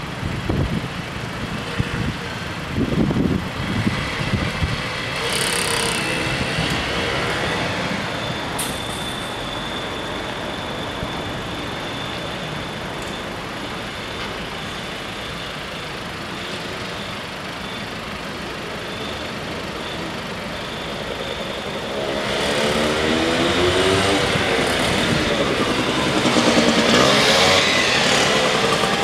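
Cars and motor scooters idling in a queue at closed railway-crossing barriers. Near the end another car drives up and the engine noise grows louder.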